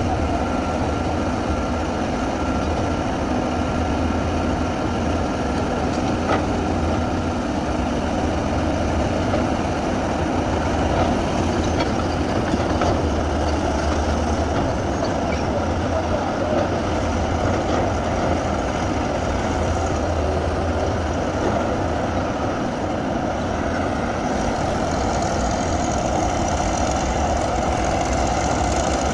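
Komatsu D155A bulldozer's diesel engine running steadily, with a deep rumble; its note rises a little near the end.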